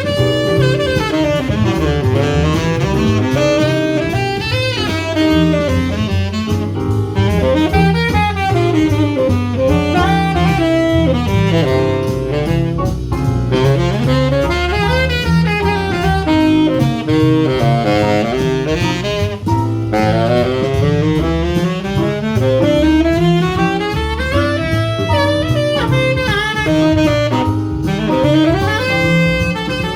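Small jazz group playing, with a saxophone carrying fast runs of notes over a steadily moving bass line.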